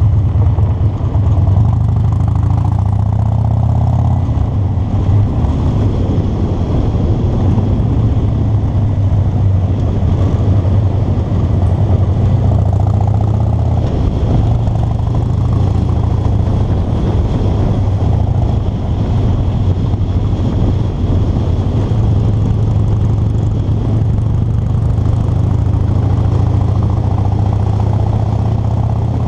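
Car driving at a steady pace, with an even low engine drone and road rumble.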